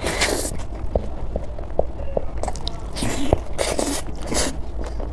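Close-miked eating: crunchy bites and chewing of a fresh vegetable roll wrapped in rice paper, with small wet mouth clicks between the crunches. There is one crunch at the start and a run of several about three to four and a half seconds in.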